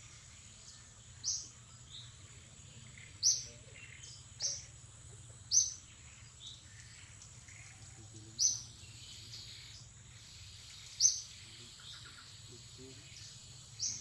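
A bird repeating one short, sharp, high-pitched call every one to three seconds, over a steady faint high whine.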